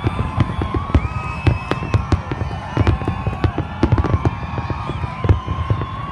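Aerial firework shells bursting in a dense barrage: many sharp bangs a second over a low rumble.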